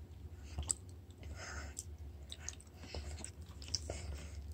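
A small child chewing dried persimmon: faint, irregular mouth clicks and soft smacks.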